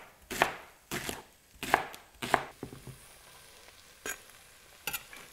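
Chef's knife slicing a leek on a cutting board, a sharp chop about every two-thirds of a second, four in all. After a quieter stretch, two lighter knocks come near the end.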